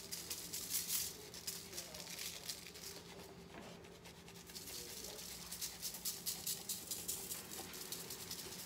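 Spice shaker jar rattling as Memphis-style barbecue dry rub is shaken out over raw chicken breasts: runs of quick, soft rattling shakes, with a lull around the middle.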